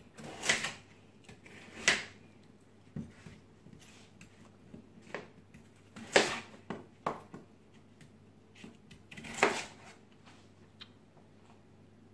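Chef's knife cutting peeled kohlrabi into pieces on a plastic chopping board: about ten cuts at uneven intervals, each ending in a knock of the blade on the board, four of them louder than the rest.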